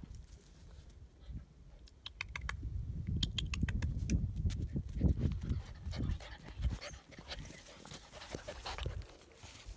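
A young German Shepherd puppy panting and snuffling close to the microphone. About two seconds in there is a run of quick sharp clicks, and there is low rumbling through the middle.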